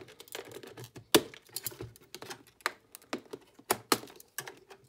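Irregular sharp clicks and snaps of hard plastic as a blade cuts and pries at the plastic rivets of a clear plastic clamshell package. One louder snap comes about a second in.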